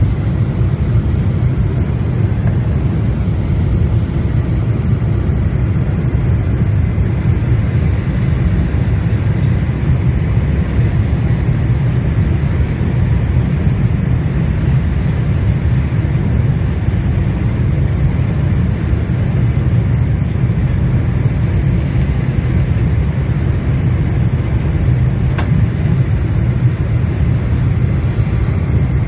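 Steady low rumble of engine and airflow noise inside the cabin of a Boeing 747-8 airliner, with a faint tick about 25 seconds in.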